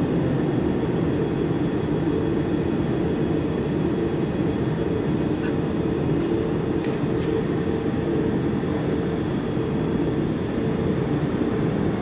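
Steady low machine hum and rumble, even throughout, with a few faint clicks near the middle.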